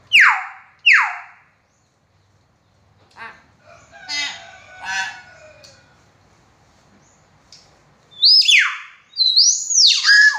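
Hill myna calling. It opens with two loud falling whistles about a second apart, gives a burst of harsher, chattering calls around four to five seconds in, and near the end breaks into a run of loud whistles that rise and fall.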